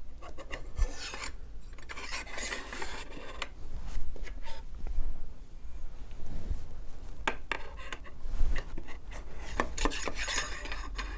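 Router table outfeed fence being adjusted by hand: scraping and rubbing as its offset rods are slid into their notches, with scattered clicks and knocks.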